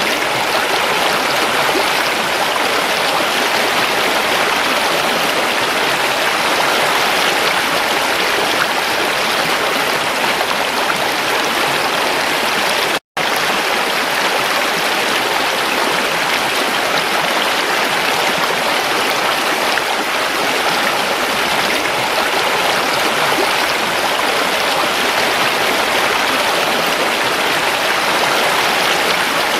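Creek water flowing steadily in an even rushing noise, with a momentary dropout about halfway through.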